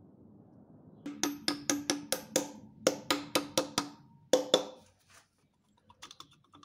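Quick metal-on-metal taps at a connecting-rod big-end bearing cap on a crankshaft, about four or five a second in three short runs, each with a brief ring. Fainter light clicks follow near the end.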